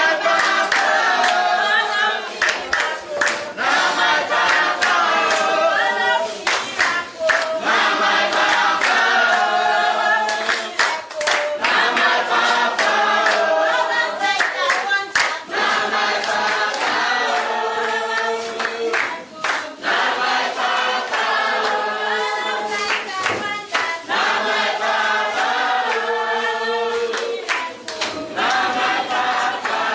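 A group of voices singing together in a choir, accompanied by hand clapping.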